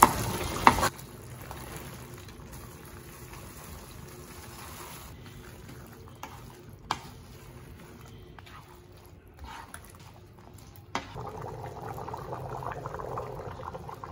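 Thick tomato sauce bubbling in a metal pan while a wooden spoon stirs it, with a few sharp knocks of the spoon against the pan. About eleven seconds in, a pot of stewing kidney beans bubbles steadily at a simmer.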